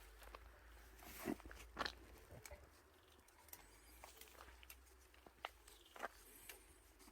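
Faint rustling of mulberry leaves and twigs being picked by hand, with a few short snaps and crackles, two of them about a second and a half in and two more near the end.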